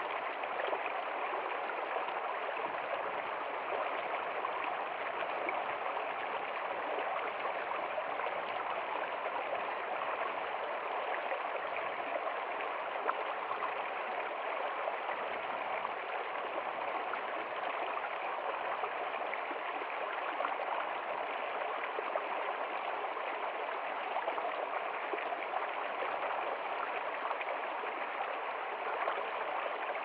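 Shallow stream flowing over and between rocks: a steady rush of water that holds even throughout.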